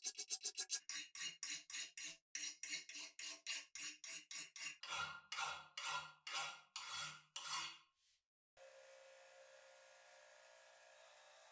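A hand file rasping back and forth on a metal crank handle held in a vise, in quick strokes at first and then steadier strokes of about three a second. The filing stops shortly before eight seconds in. A small bench grinder with a wire wheel then runs with a steady hum, not touching anything.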